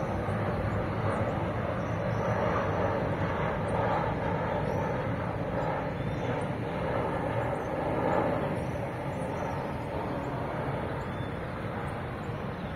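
Boeing 737 airliner's jet engines passing overhead on approach: a steady rumbling roar that eases off a little in the last few seconds.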